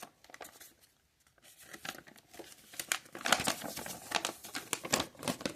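Paper rustling and crinkling as the pages of a paper instruction booklet are handled and turned, busiest from about two seconds in.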